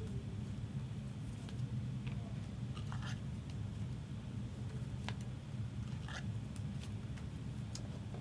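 Trading cards being slid into plastic sleeves and cases: scattered light clicks and short plastic rustles and scrapes over a steady low hum.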